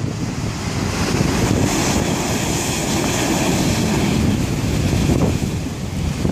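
Heavy surf crashing against a stone seawall, a big wave breaking and sending spray high over the top, with wind buffeting the microphone.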